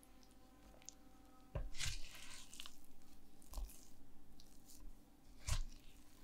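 Silicone spatula folding a sticky, shaggy bread dough in a glass bowl: wet squishing and scraping against the glass, with a few dull knocks, starting about a second and a half in and loudest near the end.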